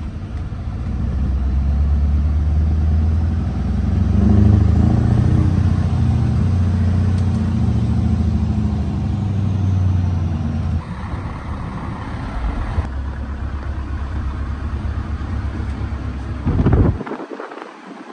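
Straight-piped Scania truck engine pulling under load, heard from inside the cab. The engine note builds over the first few seconds and holds. About eleven seconds in it drops to a lower steady run, then gives a brief louder burst before cutting off abruptly near the end.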